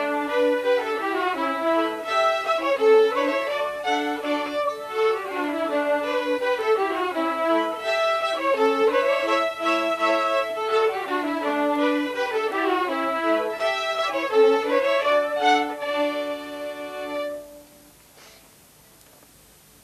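A group of fiddlers playing a Swedish folk tune from the Småland tradition together, the tune ending abruptly near the end.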